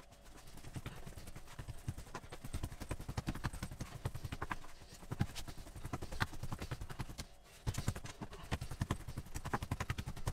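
Bread dough being kneaded by hand on a kitchen worktop: a quick, uneven run of soft thumps and slaps, with a short pause about three quarters of the way through.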